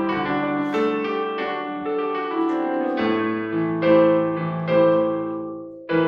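Piano playing an instrumental interlude in a slow worship song: struck chords and single melody notes that ring and decay, thinning out and fading just before the end.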